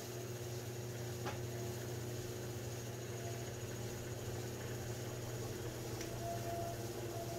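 Electric potter's wheel running at a steady speed, a low even hum, while a lump of wet clay is coned up by hand on it; one faint click about a second in.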